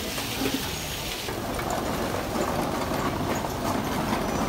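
Hot oil sizzling at a street-food frying stall for about the first second, then steady busy-street noise.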